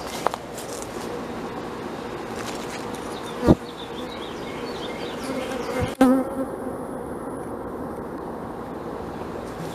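Honeybees buzzing steadily around an open hive, with two short knocks, about three and a half and six seconds in.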